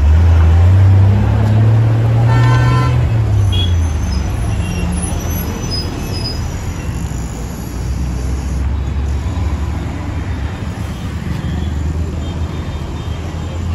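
Road traffic: a heavy vehicle's engine rumble, loudest in the first few seconds, with a horn tooting once, briefly, about two seconds in, then a steady traffic hum.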